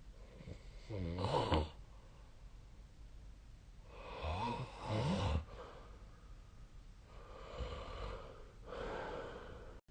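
A sleeping person snoring. A loud, pitched snore comes about a second in, a two-part snore around the middle, and two softer, breathier snores near the end.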